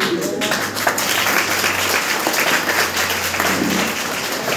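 An audience clapping together in steady applause.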